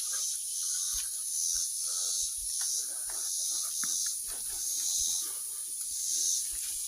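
Heavy, rhythmic hiss of hard breathing close to the microphone, about two breaths a second, from a person winded by a steep walk down, with light rustles and footfalls in brush.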